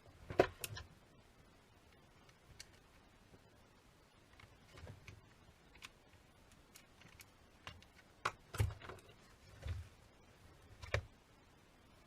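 Scattered clicks and light knocks of small hard parts being handled, a sharp one just after the start and a cluster of louder knocks near the end.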